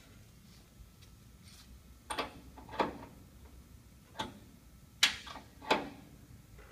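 Five sharp metallic clicks at uneven spacing, in the middle and later part, from a wrench being worked on the pinch-roller adjustment bolts of a Glass Master duct-board grooving machine.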